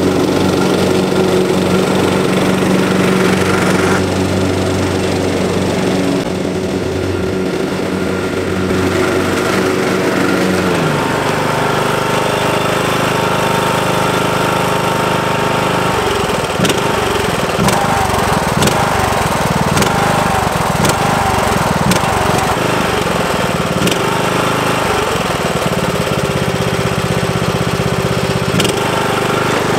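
Riding lawn mower engine running through its factory exhaust. About eleven seconds in its tone drops and it runs on at a lower pitch, with a few sharp clicks in the later part.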